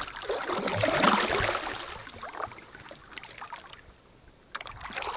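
Kayak paddle strokes splashing and dripping in calm water. The splashing is loudest in the first couple of seconds, fades almost to quiet about four seconds in, then starts again with small splashes near the end.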